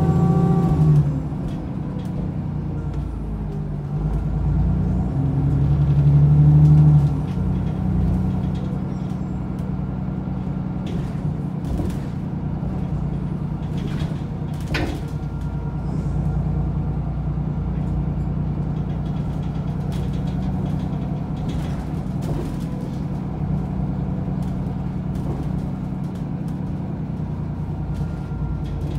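Alexander Dennis Enviro400 double-decker bus engine heard from on board, pulling hard in the first second and again from about four to seven seconds in, then running steadily, with scattered rattles and clicks from the body and a sharper knock about fifteen seconds in.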